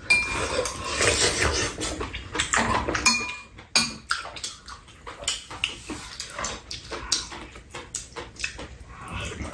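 Close-up eating sounds: chewing of spicy whole baby octopus (jjukkumi), with chopsticks and spoons clicking against bowls and the pot. The mouth sounds are strongest in the first few seconds; sharp utensil clicks run through.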